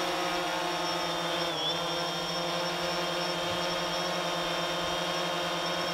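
DJI Phantom 3 Standard quadcopter hovering, its four brushless motors and propellers giving a steady, even whine, with a brief dip in pitch about one and a half seconds in as the motors adjust.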